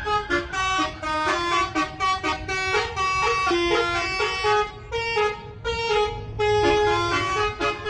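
Bus telolet horn, a set of air-horn trumpets, playing a lively melody of short notes, several often sounding together as chords, over a low engine rumble.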